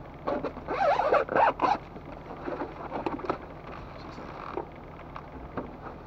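Off-road vehicle engine idling low, with a run of squeaks and creaks in the first two seconds, then scattered clicks and knocks.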